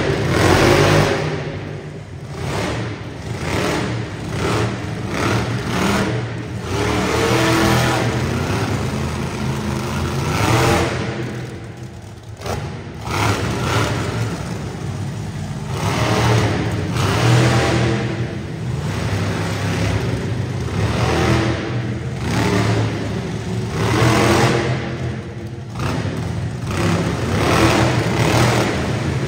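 Monster truck engine revving hard again and again, the pitch surging up and dropping back every second or two.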